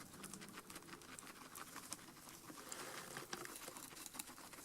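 Guinea pig rustling in hay: faint, with a quick, uneven scatter of small crackles and clicks.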